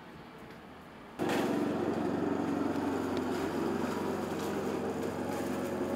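An engine running steadily at one constant speed, cutting in suddenly about a second in.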